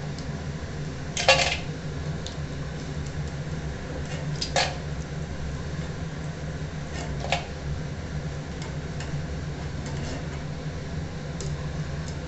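Penne pasta deep-frying in hot oil in a kadai with a steady sizzle. A metal strainer clinks against the pan three times, the loudest about a second in. A steady low hum runs underneath.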